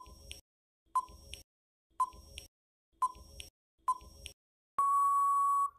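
Quiz countdown timer sound effect: five short ticks one second apart, then a steady electronic beep held for about a second as time runs out.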